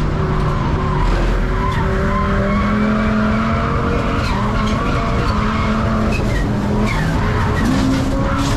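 Turbocharged Ford Focus race car's engine running hard under racing load, heard from inside the cabin, its pitch rising and falling as the driver works through the corners.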